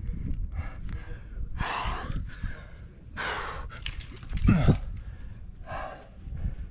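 A climber's heavy breathing on lead: several hard exhales, each about half a second long, with a louder low burst about four and a half seconds in.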